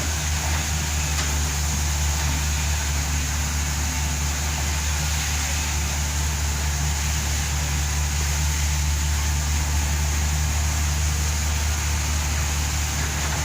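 Backhoe's diesel engine running steadily, a deep even hum with no changes in speed.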